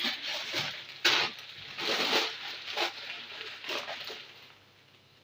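Plastic bags rustling and crinkling in several short bursts as bags of bought goods are handled, dying away over the last second.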